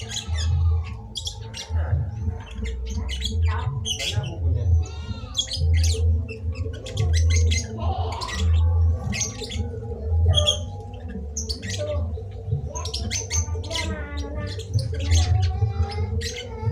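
Zebra doves (Bangkok perkutut) cooing, mixed with many short, sharp chirps from other small birds throughout.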